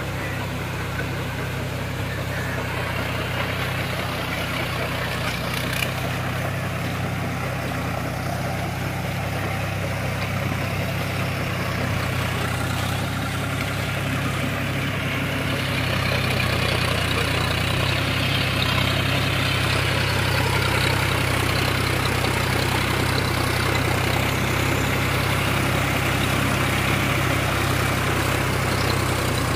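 John Deere tractor's diesel engine running steadily under load while it drives a rotavator tilling the soil. About halfway through the sound grows louder and brighter as the rotavator churns wet paddy mud.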